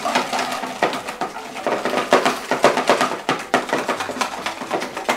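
Wire balloon whisk beating thick chocolate cake batter in a plastic mixing bowl: quick, irregular clicks and scrapes of the metal wires against the bowl.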